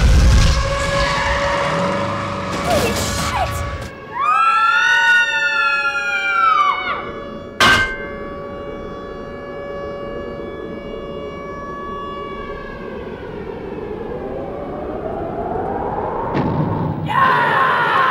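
Film sound effects for a giant-monster fight: a deep explosion boom at the start, a high screeching cry that rises and falls in pitch from about four to seven seconds, and a sharp crack just after it. A long ringing tone follows and slowly fades, a rising sweep comes in, and music starts near the end.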